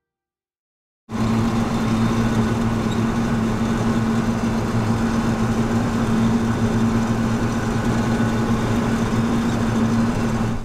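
Vehicle engine running at a steady speed, a constant hum with road or wind noise, starting abruptly about a second in.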